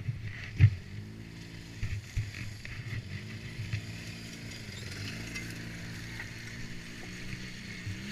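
ATV engine running on the move, its pitch stepping up and down with the throttle several times, with a few knocks and thumps; the loudest is a sharp knock a little over half a second in.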